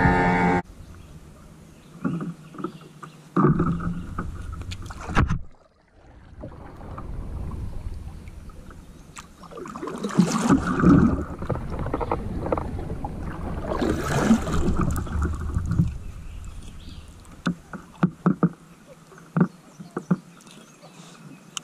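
A kayak being paddled: paddle blades dipping and splashing in the water in uneven swells, with a scatter of sharp knocks, most of them near the end.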